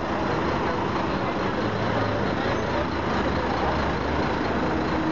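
Busy city street noise: steady traffic rumble with the chatter of a crowd of people waiting in a queue.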